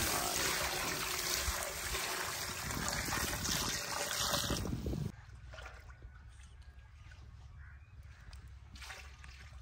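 Water poured in a stream into a large aluminium cooking pot of fried goat trotters, splashing onto the hot meat to start the simmering stage of mutton paya. The pouring stops abruptly about halfway through, leaving only faint background sound.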